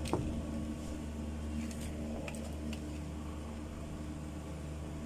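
A steady low mechanical hum runs throughout, with a sharp click right at the start and a couple of light ticks about two seconds in as the parts of a dismantled mixer-grinder motor (armature, end bracket) are handled.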